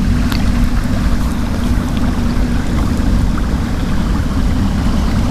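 Steady, loud low rumble with a few faint ticks over it.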